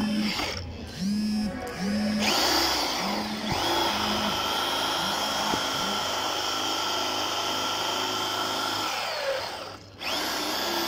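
Electric hand drill boring into the metal lock of a motorcycle's fuel-tank cap, drilling the lock out. It runs in short bursts at first, then steadily for several seconds, stops briefly near the end and starts again.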